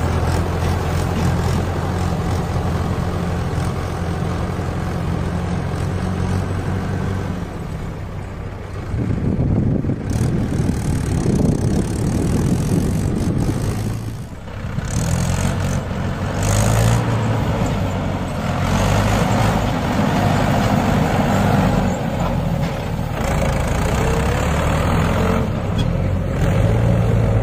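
Mahindra 585 DI Power Plus tractor's four-cylinder diesel engine running while it hauls a fully loaded trolley. It holds an even note at first, turns rougher and noisier about nine seconds in, dips briefly near the middle, then picks up again.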